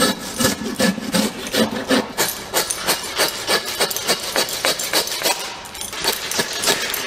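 Hand saw cutting through a deer carcass, with steady back-and-forth strokes about three a second and a short pause near the six-second mark.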